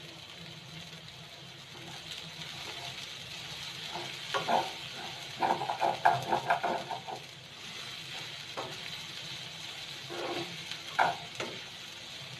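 Sliced onion, capsicum and carrot sizzling as they fry in oil in a pan, with a utensil stirring and knocking against the pan in a run of strokes about four seconds in and again near the end.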